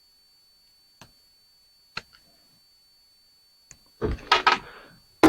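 A few faint single clicks of scrap light-fixture parts being handled, then a brief burst of clattering knocks about four seconds in as the pieces are moved or set down.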